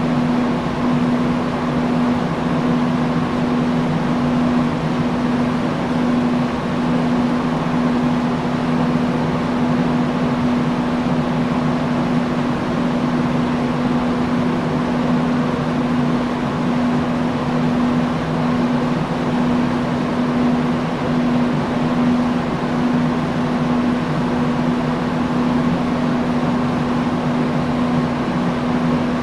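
Industrial fan running steadily: the even rush of moving air with a constant low hum from the motor.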